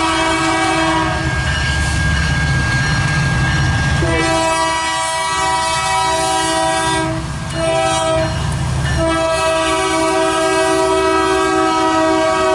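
Freight locomotive's multi-chime air horn sounding a crossing pattern: a long blast ending about a second in, then after a pause a long blast, a short blast and another long one, over the low rumble of the passing train.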